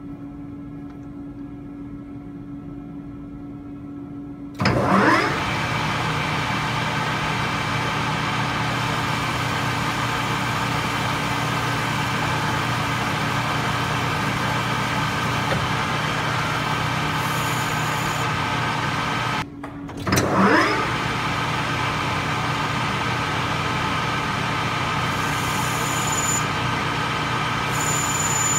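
Small lathe turning a 17-4 stainless steel shaft. A quieter steady tone gives way about five seconds in to a short rising whine and then a loud, steady machine hum. The hum breaks off briefly about twenty seconds in, then comes back with the same rising whine.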